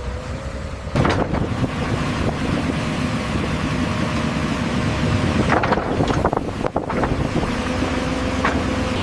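Excavator's diesel engine running steadily while it digs, with sharp metallic clanks from the bucket and arm: one about a second in, a cluster around six to seven seconds, and another near the end.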